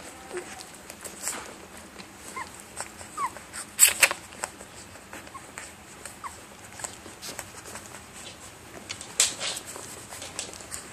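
Three-week-old chocolate Labrador puppies nursing on their mother: scattered short, high squeaks and whimpers among soft suckling clicks, with one louder short noise about four seconds in.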